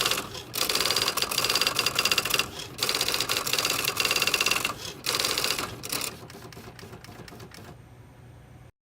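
Typewriter typing in fast runs of key strikes, broken by three short pauses. It then slows to scattered strikes and stops near the end.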